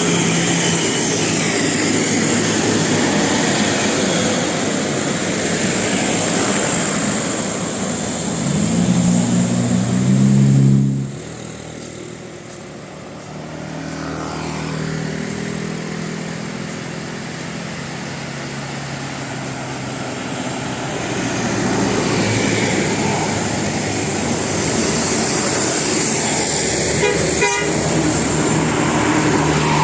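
Bus with a Basuri multi-tone horn passing: the horn plays over the running bus engine, loudest about ten seconds in, then cuts off abruptly.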